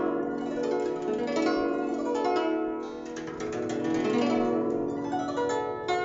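Guzheng (Chinese zither) played by hand: a steady run of plucked notes ringing on over one another.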